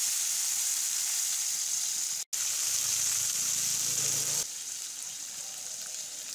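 Spiced pigeon meat frying in oil in a kadai, a steady sizzle as the meat is pushed to one side of the pan at the end of the dry-frying stage. The sizzle cuts out for a moment a little over two seconds in and turns quieter about four and a half seconds in.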